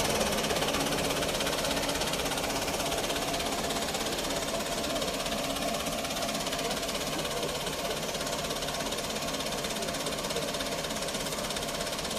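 Diesel engine of a Landini farm tractor running steadily with a knocking clatter.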